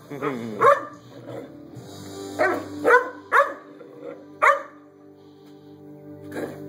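A 3.5-month-old chocolate Labrador puppy barking about seven times in short, irregular bursts, with a pause of a couple of seconds before a last bark near the end. These are wary alarm barks at a push broom lying on the floor that the puppy is afraid of.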